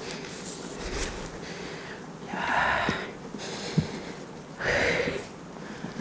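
A man breathing out heavily twice, long breathy sighs about two and a half seconds apart, with a few faint clicks between them.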